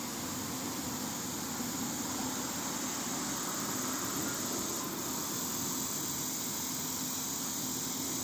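Steady background hum and hiss with a faint constant low tone and no distinct events.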